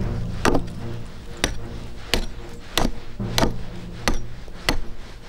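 Hammer blows on a wooden pole, a steady rhythm of about seven sharp strikes, over background music.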